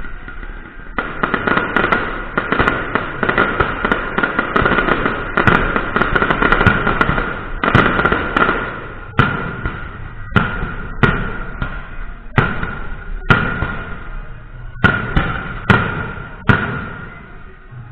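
Fireworks going off: a dense, rapid crackle of bangs for several seconds, then separate loud bangs about once a second that stop shortly before the end, over a steady high tone.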